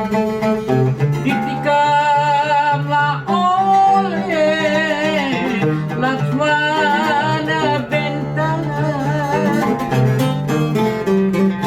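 A traditional Malay song playing: plucked strings accompany a wavering, heavily ornamented melody line in an instrumental or wordless passage between sung verses.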